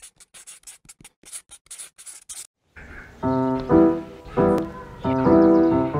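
A run of dry, scratchy clicks lasts for about two and a half seconds. Then background music comes in: slow, sustained piano or keyboard chords, each struck about every three-quarters of a second to a second.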